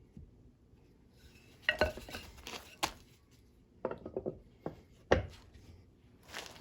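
Hard objects being handled, knocking and clinking against each other in a few clusters of sharp strikes.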